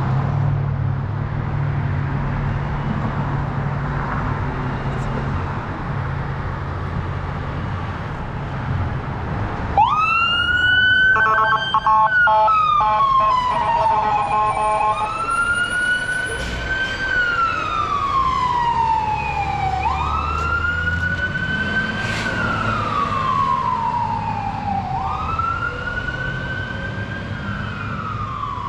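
A heavy fire engine's motor rumbles steadily. About ten seconds in, its electronic siren comes on with a sharp upward sweep and a brief rapid pulsing. It then settles into a wail, each cycle rising quickly and falling slowly, about every four to five seconds.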